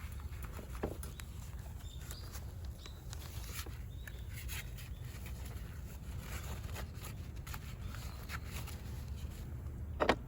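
Scattered light clicks and taps over a steady low outdoor rumble, with one sharp knock near the end.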